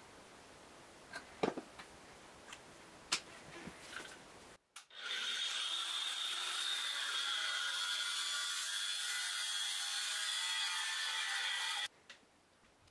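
A few light knocks from handling a plastic pipe fitting, then an angle grinder with an abrasive cutting disc runs with a steady high whine as it cuts through a grey PVC pipe elbow, stopping abruptly about a second before the end.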